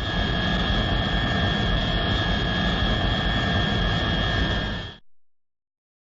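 Sci-fi spaceship sound effect: a steady jet-like rumble with two high steady whining tones over it, stopping abruptly about five seconds in.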